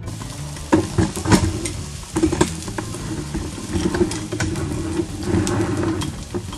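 Diced onions sizzling in olive oil in a frying pan, with a utensil stirring and knocking against the pan several times in the first couple of seconds.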